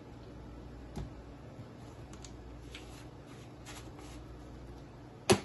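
Hands handling ingredient containers at a kitchen counter: soft rustling with a click about a second in, and a sharp knock or snap near the end.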